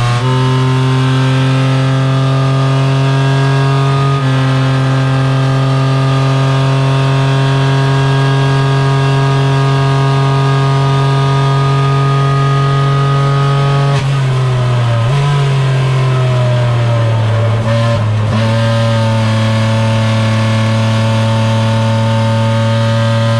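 Renault Twingo Cup race car's engine heard from inside the stripped cabin, running hard at a steady pitch along the straight. About two-thirds of the way through its pitch falls and wavers through downshifts under braking, then it settles at a steady pitch again.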